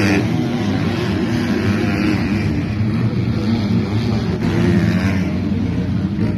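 Motocross bike engines revving, the pitch rising and falling as the riders accelerate and back off.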